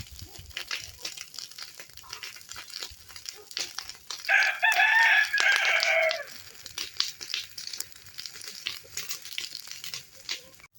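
A rooster crowing once, a single call of about two seconds in the middle, dropping in pitch at its end, over scattered light clicks and rustling.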